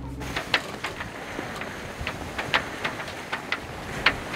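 Sailing catamaran under way: a steady rush of wind and water, with irregular sharp slaps and knocks a few times each second.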